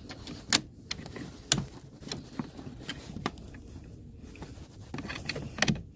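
Irregular clicks and light taps of hard plastic car door-handle parts being handled and fitted together, with sharper clicks about half a second in and near the end.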